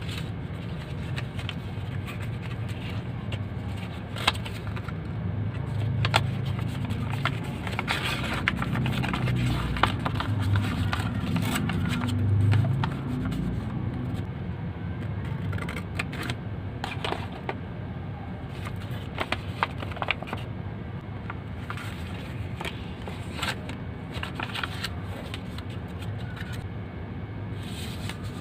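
Origami paper being folded and creased by hand: irregular crisp crackles, scrapes and taps of paper, over a steady low rumble.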